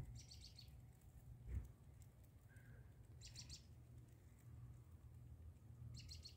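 Faint bird chirping: three short, rapid, high-pitched trills about three seconds apart, with a soft low thump about a second and a half in.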